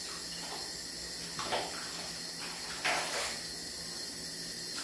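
Water sloshing in a plastic basin as a wet cat is rubbed down by hand, with two short splashes, the louder about three seconds in, over a steady hiss.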